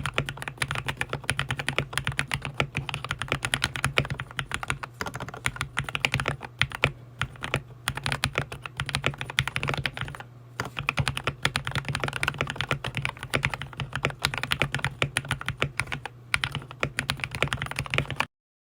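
Fast, continuous typing on an RK61 Pro 60% mechanical keyboard fitted with lubed and filmed Gateron Milky Yellow linear switches, PE-foam and tempest mods and PBT XDA keycaps. Dense keystroke clicks run with a few short pauses and cut off suddenly just before the end.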